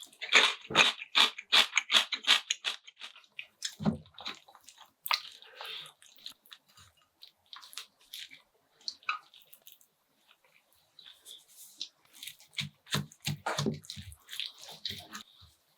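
Close-miked eating: wet chewing and mouth smacking in clusters of rapid sticky clicks, busiest at the start and again near the end, with a quieter spell in the middle.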